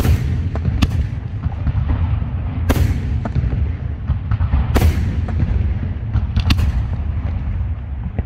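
Aerial display firework shells bursting: five sharp bangs at irregular intervals of about one to two seconds, with smaller cracks between them, over a continuous low rumble.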